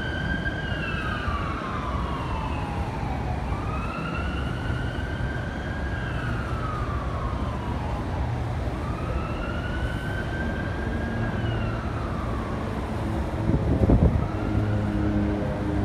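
Emergency vehicle siren wailing, its pitch rising and falling slowly about once every five seconds, over steady city traffic noise. About fourteen seconds in, a brief loud rumble stands out above the siren.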